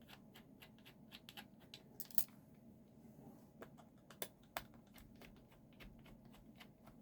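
Faint, irregular small clicks and taps of a small Phillips screwdriver and screws as the corner screws holding a laptop screen panel are undone.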